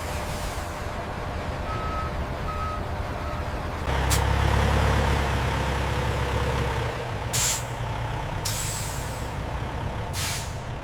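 A heavy vehicle such as a truck: three short beeps at one pitch, then a low engine rumble that grows louder about four seconds in, followed by several short hisses of released air.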